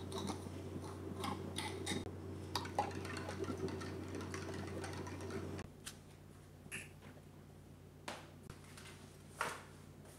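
Small clicks and scrapes of a screw-on cap being turned onto a stainless steel travel bottle, over a steady low hum. About five and a half seconds in, the hum drops away and a few separate soft knocks follow as desk items are handled.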